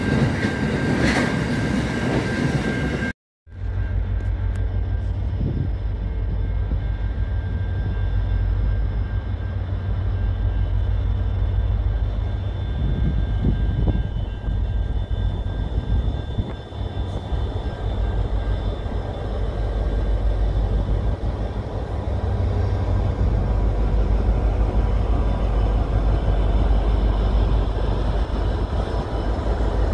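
A train rumbles past, cut off suddenly about three seconds in. Then the diesel locomotives at the head of an Aurizon freight train approach and pass, their engines giving a loud, steady low drone.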